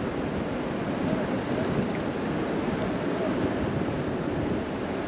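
Steady rush of flowing river water, mixed with wind on the microphone.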